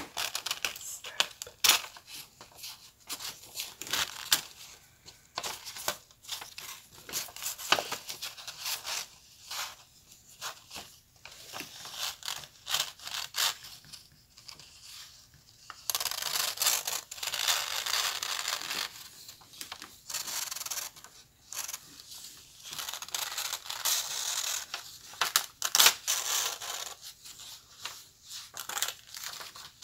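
Paper rustling, crinkling and scraping as coloured paper strips are pulled through slits in a paper sheet: many short sharp crackles, with longer stretches of sliding rasp a little past halfway and again later.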